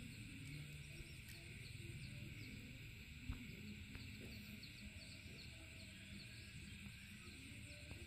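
Faint rural ambience: small birds chirping on and off over a steady insect drone and a low rumble, with one sharp tap about three seconds in.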